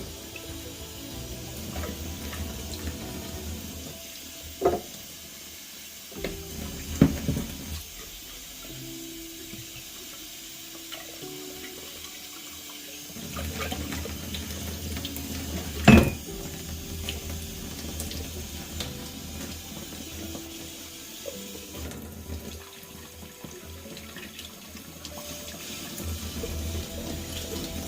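Water running steadily, as from a tap, with a few sharp knocks, the loudest just past the middle.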